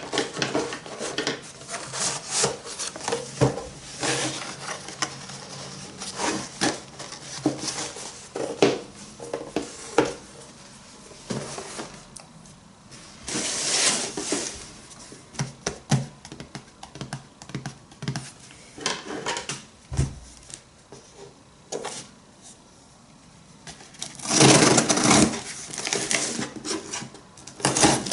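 Hands handling packaging and objects: irregular clicks, taps and rustles, with two louder bursts of rustling about thirteen seconds in and again near the end.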